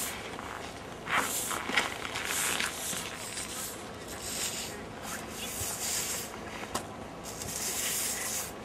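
Footsteps crunching on snow, irregular steps about one every half second to second.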